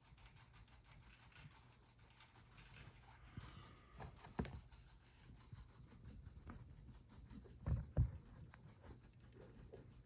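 Faint scratching and rustling as a ball python's coils shift over a rat and the pad under them, with a sharp tick about four seconds in and a soft double thump about eight seconds in.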